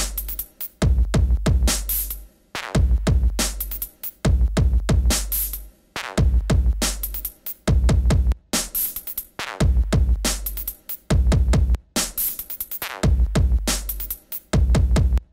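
Electronic outro music with a drum-machine beat: sharp drum hits over heavy, deep bass notes in a repeating pattern.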